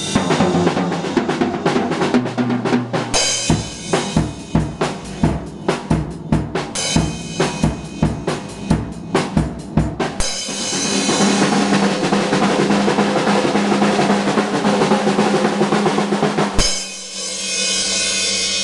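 Acoustic drum kit with Zildjian ZXT cymbals being played: a beat of separate snare, bass drum and tom strokes, about three or four a second, for the first ten seconds. Then a fast continuous roll runs for about six seconds and ends on a final hit that rings out.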